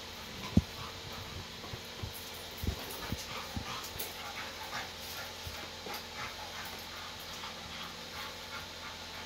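American Staffordshire Terrier panting hard as it jumps and bites at a hanging rubber tire, with dull thumps from its landings and the tire, the loudest about half a second in.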